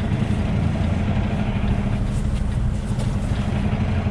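Semi truck's diesel engine running steadily at low speed, heard from inside the cab as the truck backs its trailer.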